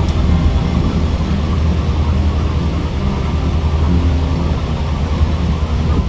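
Heavy machinery running with a steady low drone.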